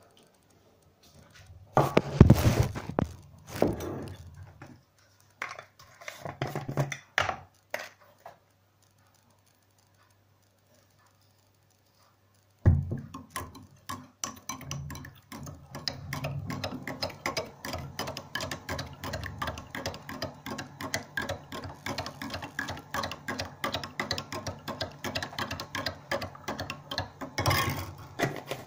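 Metal teaspoon stirring milky tea in a ceramic mug, clinking against the sides about four times a second for the second half. Earlier, a few louder clatters of spoon and mug, then a few seconds of silence before the stirring starts suddenly.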